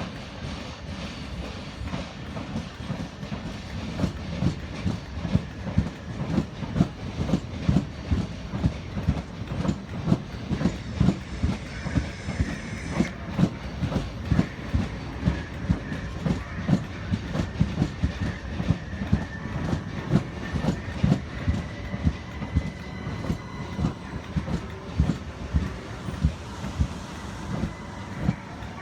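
Electric multiple-unit train rolling past with its wheels clattering over rail joints, a steady rhythm of about two knocks a second. A faint high wheel squeal comes in about halfway through.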